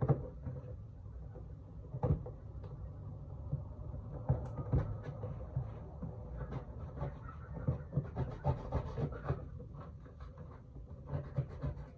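Scratching and rubbing at packing tape on a sealed phone box, with many small scrapes and clicks as the tape is picked at and peeled.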